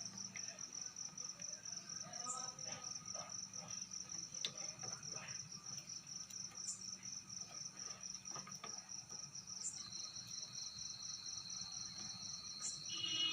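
A steady, rapidly pulsing high-pitched trill, like a cricket chirping, with faint soft clicks underneath; a second steady high tone joins about ten seconds in.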